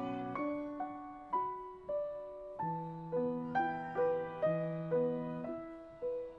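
Solo piano music: a slow, gentle melody over held chords, a new note or chord struck about every half second and fading until the next.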